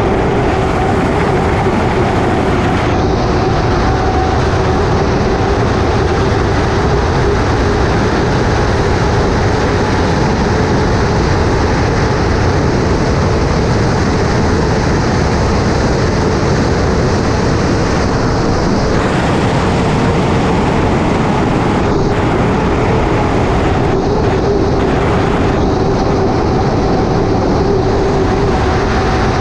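Unlimited hydroplane's Lycoming T55 turbine engine running flat out at racing speed, heard onboard: a steady turbine tone over loud rushing wind and water noise from the hull.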